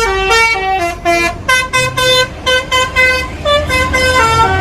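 Bus telolet horn: a multi-tone musical horn playing a quick tune of short notes that step up and down in pitch, over a low rumble.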